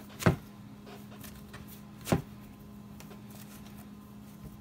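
Hands kneading a ball of corn masa dough on a plastic cutting board: two sharp thumps about two seconds apart as the dough is pressed down onto the board, with faint squeezing and rustling between them.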